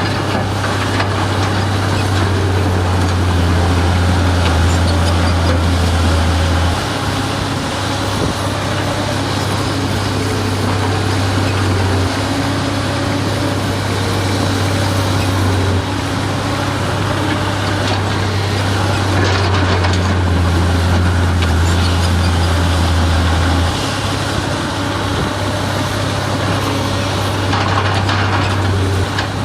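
Diesel engine of heavy earthmoving machinery running under load. A deep steady drone swells and eases every few seconds as the work changes.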